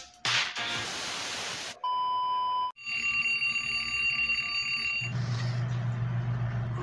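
A rushing whoosh, then one short steady electronic beep, then an alarm clock ringing for about two seconds; a low steady hum takes over near the end.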